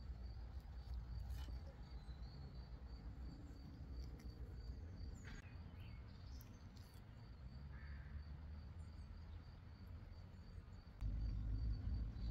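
Crickets chirping in a steady, high, evenly pulsing trill, over a low rumble that jumps louder about eleven seconds in, with a few faint clicks.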